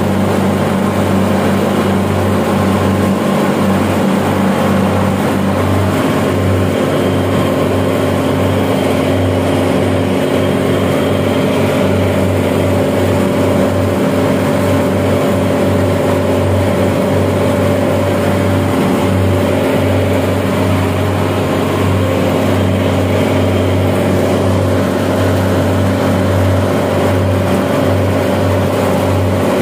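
Chiller machinery running with a loud, steady drone and low hum. Its tone shifts about six seconds in, when a higher hum joins.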